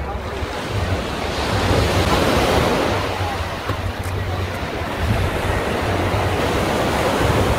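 Small ocean waves breaking and washing onto a sandy beach, swelling louder about two seconds in, with wind buffeting the microphone.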